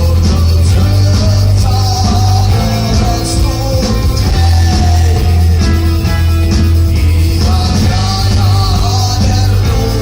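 A rock band playing live, with a heavy steady bass and drums under a wavering melody line, a voice or a lead guitar.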